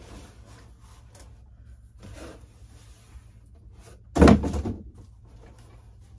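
A long cardboard box being handled: quiet cardboard rustles and scrapes, then one loud thump about four seconds in.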